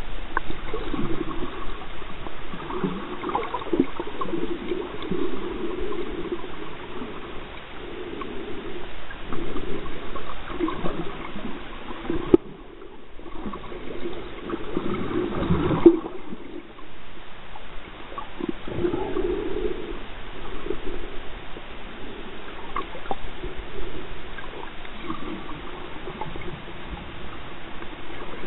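Muffled, gurgling water movement recorded by an underwater camera, shifting irregularly with the surge. There are two sharp knocks about three and a half seconds apart near the middle, with a quieter stretch between them.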